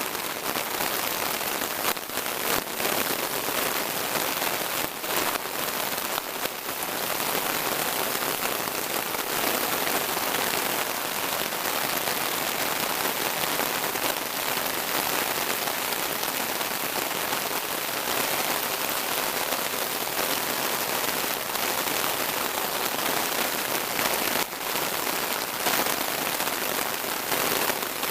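Heavy rain pouring down steadily, a dense, even hiss with no break.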